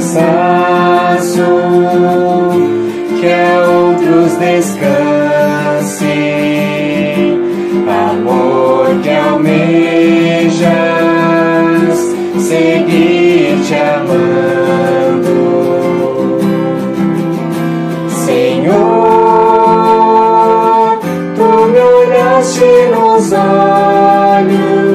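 A hymn sung to acoustic guitar accompaniment, the voice carrying a slow melody over steadily strummed chords.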